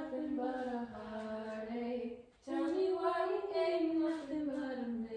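A girl singing unaccompanied, holding long drawn-out notes that slide slowly in pitch, with a short pause for breath a little past halfway.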